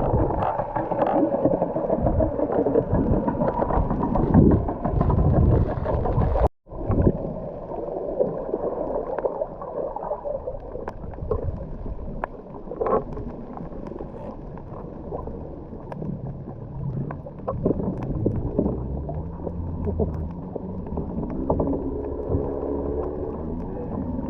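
Muffled sound of water moving and gurgling around a camera held underwater while snorkeling, with a brief silent gap about six and a half seconds in and a wavering hum near the end.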